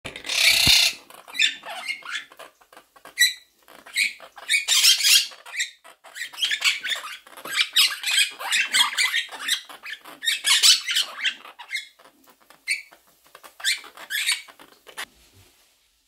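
Quaker parrots (monk parakeets) chattering and squawking: a harsh loud screech at the start, then a busy run of short high chirps and squeaks with brief pauses, fading out about a second before the end.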